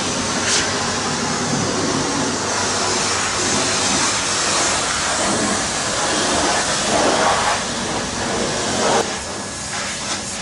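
Hot-water pressure washer running steadily, its spray making an even rushing noise.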